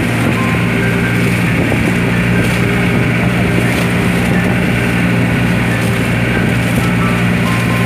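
Engine of a motorized outrigger boat (bangka) running steadily under way, with water rushing along the hull.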